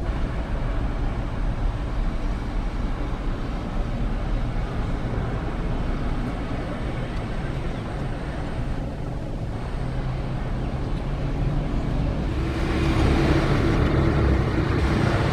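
Jet engines of a Boeing 777 at takeoff thrust: a steady rumbling roar as the airliner climbs away. About twelve seconds in it gives way to a louder roar with a steady hum, from a Boeing 787 on the runway.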